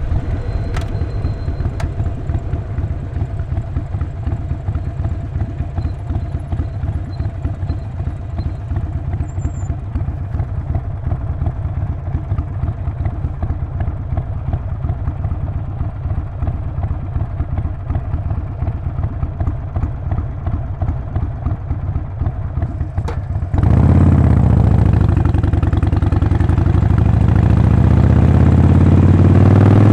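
Harley-Davidson Sportster 48's air-cooled V-twin engine idling steadily through its exhaust. About 23 seconds in it suddenly gets much louder, and the pitch dips and then climbs as the bike pulls away and accelerates.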